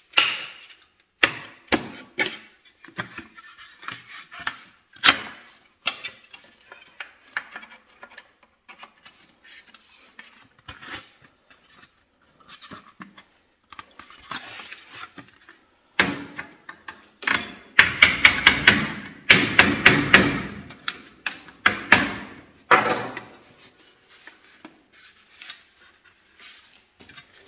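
Sheet-metal balcony cover profiles clanking and knocking as they are handled and slid together at a joint. Scattered sharp clicks run throughout, and about two-thirds of the way through comes a quick series of about ten loud knocks, roughly three a second.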